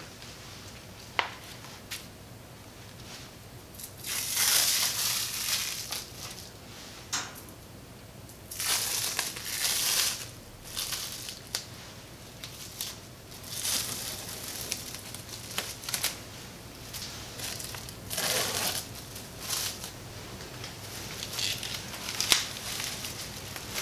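Plastic cling film crinkling in several bursts as it is unwrapped and pulled away from a slab of chocolate dough, with a sharp tap about a second in.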